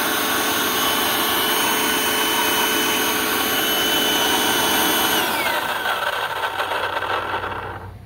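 Milwaukee M18 wet/dry vac motor and fan, wired around the circuit board, running with a steady high whine, then switched off about five seconds in and winding down with a falling whine. The owner calls it a little noisy and is unsure whether that is normal or a bearing.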